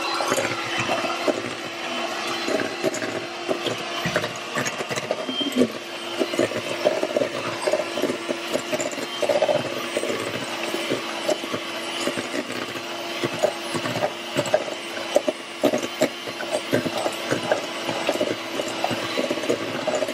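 Electric hand mixer running steadily, its motor giving an even hum while the metal beaters clatter and tick against the stainless steel bowl as they beat a thick butter, sugar and egg batter.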